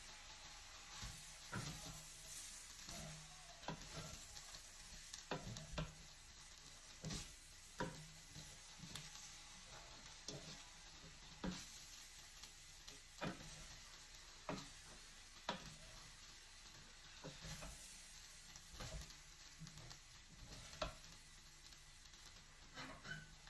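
Wooden spoon stirring fried rice in a stainless-steel pot on the hob, with faint sizzling and irregular knocks and scrapes of the spoon against the pot.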